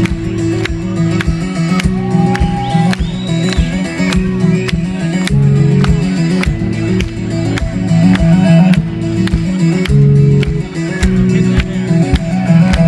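Solo acoustic 12-string guitar played live: fast, rhythmic fingerpicking with sharp, percussive note attacks over a repeating pattern of low notes.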